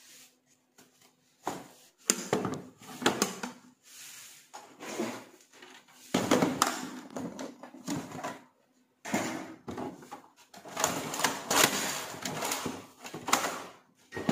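Bundles of paper banknotes being handled and loaded into a plastic ATM cash cassette: paper rustling mixed with clicks and clatter from the cassette, in irregular bursts starting about a second and a half in.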